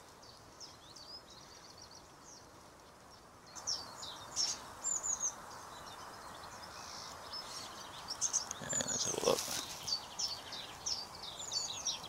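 Small songbirds chirping and twittering, many short high calls, over a light outdoor hiss. A brief, lower, louder sound comes about nine seconds in.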